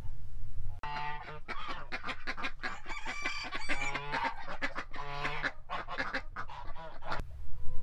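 A flock of domestic geese honking, with many short calls overlapping. The honking starts about a second in and cuts off sharply near the end.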